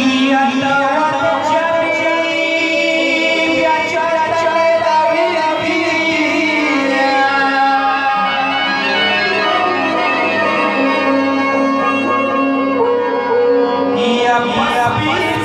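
Pashto Shia mourning lament (saaz matam) music: a voice singing a slow melody over a steady drone and instrumental backing.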